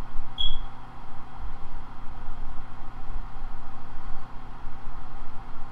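A steady low hum and rumble, with one short, high metallic ping about half a second in as multi-tool wire cutters snip a wire in an old aquarium light fixture.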